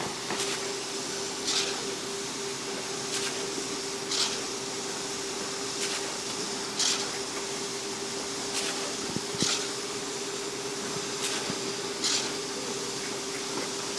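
Concrete pump running with a steady hum, a short hiss sounding about every second and a half in a regular cycle.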